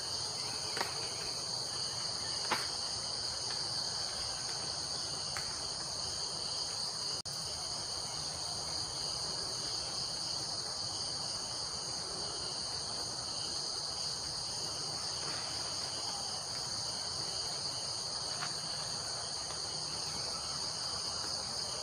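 Steady high-pitched chorus of forest insects, with a few short snaps over it, the sharpest about two and a half seconds in.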